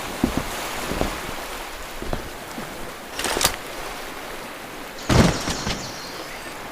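Sound effects of an AK-74M rifle being handled: a few sharp clicks and clacks over a steady hiss, with the loudest clack about five seconds in.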